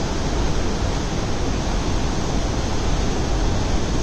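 Waterfall rushing, a steady loud noise of falling water with a deep low end.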